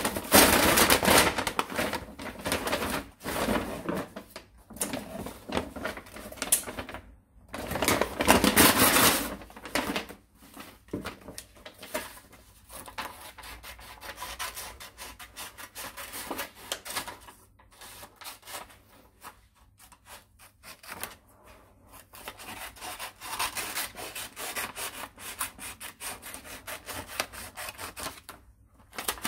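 Brown paper bag crinkling and rustling as it is handled and cut up with scissors. Loud crinkling comes near the start and again about eight seconds in, followed by a long run of small scissor snips and paper rustles.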